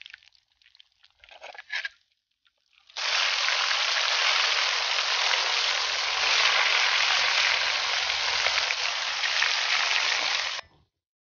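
Magur catfish pieces frying in hot mustard oil in an iron kadai, a loud, steady sizzle. After a few faint crackles, the sizzle starts suddenly about three seconds in and cuts off sharply near the end.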